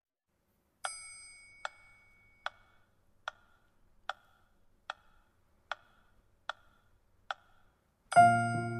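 Karaoke backing track opening with a count-in of nine evenly spaced metronome-style clicks, a little more than one a second. Near the end, electric piano chords come in loudly as the song's intro starts.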